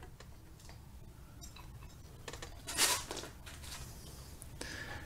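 Quiet handling of drum brake parts: faint light metal clicks and one brief louder rustle a little under three seconds in.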